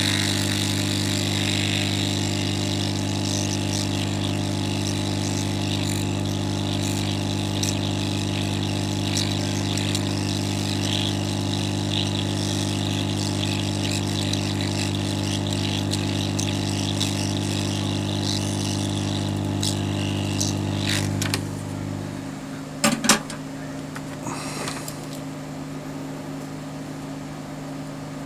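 Hot-air rework station blowing on a surface-mount chip to reflow its solder: a steady blower hum with a hiss of air, cutting off about three-quarters of the way through and leaving a fainter hum. Two sharp clicks follow shortly after.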